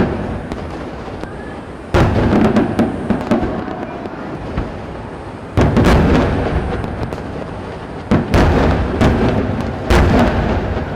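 Aerial fireworks shells bursting with a deep boom four times, about every two to three seconds. Each boom is followed by a long rolling rumble and scattered sharp crackles.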